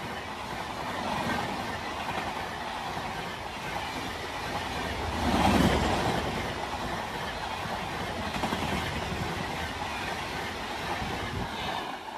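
LHB express passenger coaches rushing past at high speed: a steady rush of wheels on rail and air, with a louder surge about halfway through. The noise starts to fall away at the very end as the last coach goes by.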